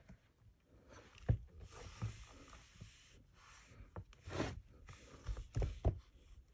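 Hands pressing and rubbing on the clear plastic lid of a stamping platform, with a few light knocks and stretches of rubbing hiss.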